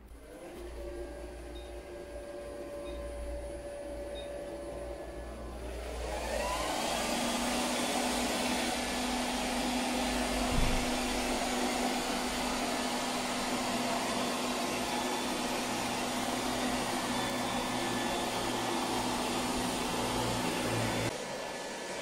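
Silvercrest robot vacuum cleaner running: a quiet hum at first, then about six seconds in its motor spins up with a rising whine into a steady loud whirring. There is a single knock about ten and a half seconds in, and the sound drops in level about a second before the end.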